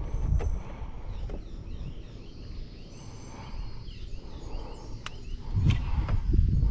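Birds chirping in short, repeated falling notes over a low rumble of handling noise. About five seconds in come a few sharp knocks and heavier thumps, the loudest sounds, from gear being handled in the aluminium boat.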